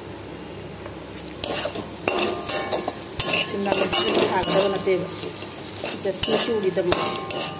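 Steel spatula scraping and knocking against a steel pan as it mashes and stirs boiled potato filling. The scrapes and clinks come in an irregular run starting about a second in.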